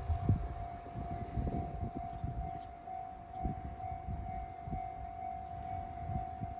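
Japanese railway level-crossing alarm ringing: a steady, evenly repeating electronic tone. Irregular low rumbling underneath.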